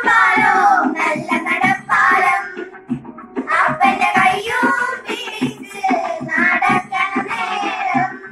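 Girls singing a Malayalam folk song (nadanpattu) in sung phrases of a second or two with short breaths between, over a steady percussion beat.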